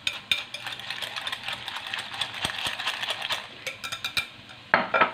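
A utensil stirring rolled oats into beaten eggs in a glass bowl, a rapid, irregular run of clicks and scrapes against the glass, with a louder clatter near the end.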